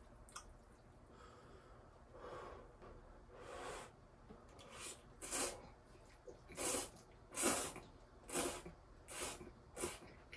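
A person slurping instant ramen noodles off chopsticks: two softer, longer slurps, then seven short, sharp sucks of noodles, the loudest a little past the middle.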